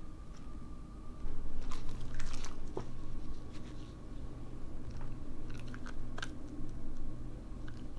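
Shiba Inu biting and crunching a whole dried capelin fish treat: crisp, irregular cracks in short clusters, the loudest group about a second and a half in and more a few seconds later.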